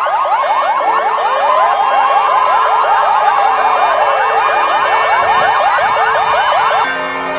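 Several ambulance sirens sounding together: a fast yelp repeating about five times a second, with a slower wail rising and falling over it. They cut off abruptly near the end.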